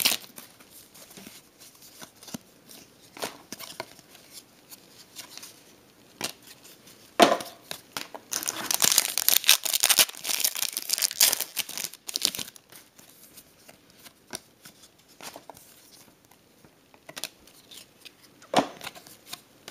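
Trading card pack wrappers being crinkled and torn open, with faint rustling between. A sharp tear partway through is followed by several seconds of dense crinkling, and another short burst comes near the end.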